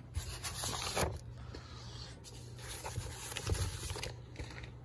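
Old paper magazines and pamphlets being shuffled and slid over one another in a cardboard box: dry rustling, loudest in the first second, with softer scrapes later. A steady low hum runs underneath.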